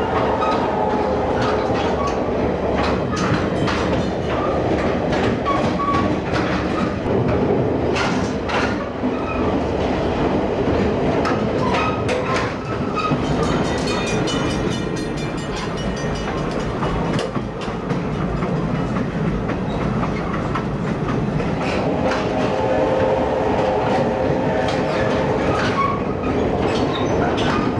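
Steam-hauled excursion train's passenger coach riding at speed: a steady rumble of wheels on rail with irregular clicks over rail joints. A held, several-note pitched tone sounds over it near the start and again in the last few seconds.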